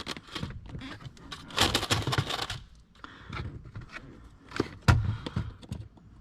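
Plastic clicks, rattles and scraping from the hood release handle being worked free of the lower dash trim, its tab pushed in and the piece slid out, with a sharper knock about five seconds in.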